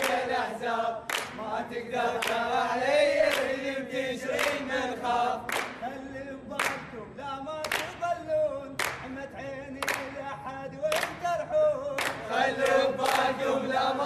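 A group of young men singing together in unison, their voices held in long lines, with a sharp hand clap about once a second keeping the beat.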